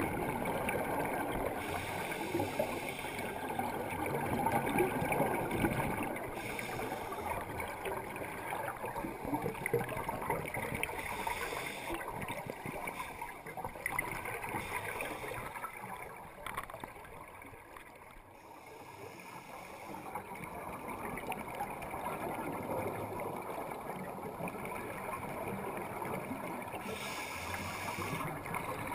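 Scuba diving heard underwater: the rough bubbling and rushing of regulator breathing and exhaled air bubbles, swelling and easing unevenly, with a quieter lull about two-thirds of the way through.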